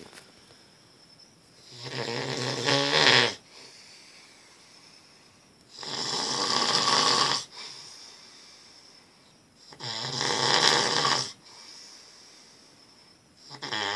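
A man snoring loudly in a slow, even rhythm: a rasping snore about every four seconds, each lasting about a second and a half. Three full snores, with a fourth starting near the end.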